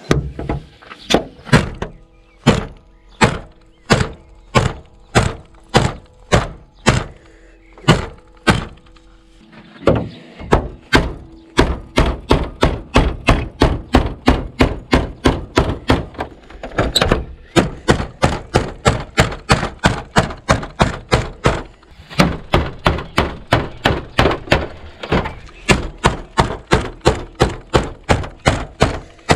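Tip of a Mora Companion Heavy Duty knife (Sandvik 12C27 stainless blade) stabbed again and again into a car's sheet-metal hood: a steady series of sharp metal thunks, about two a second at first, then faster, about three or four a second, after a short pause near the middle. It is a tip-strength torture test.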